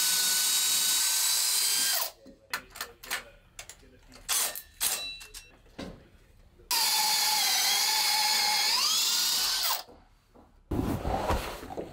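Cordless drill spinning a hole saw through thick old teak. It cuts in two steady, high-pitched runs separated by a few seconds of short stop-start bursts. Near the end of the second run the pitch sags and then climbs back.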